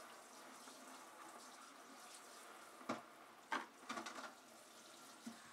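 Kitchen tap water running into the sink during dishwashing, a steady low hiss, with a few sharp knocks about three to four seconds in.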